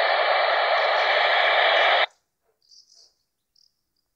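Handheld Uniden Bearcat scanner tuned to the ISS downlink on 145.800 MHz giving steady radio static with no voice in it. The static cuts off suddenly about two seconds in, leaving near silence with a few faint blips.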